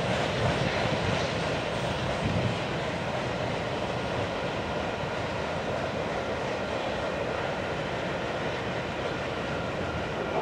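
Freight train's last cars rolling away over the rails: a steady rumble of steel wheels on track, easing off slightly in the first couple of seconds and then holding.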